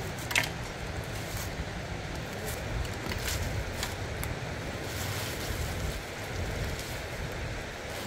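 Steady rushing of a river with a low rumble of wind on the microphone, overlaid by scattered crackles and snaps of dry twigs and leaves being handled on stony ground; the sharpest snap comes just under half a second in.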